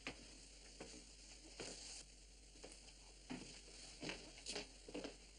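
Near silence: a faint steady hiss with a scattering of soft, short knocks and shuffles.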